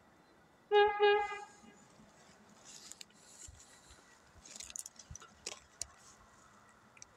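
Horn of an approaching MAN railcar sounding two short blasts close together, about a second in, on one steady pitch. Scattered faint rustles and clicks follow.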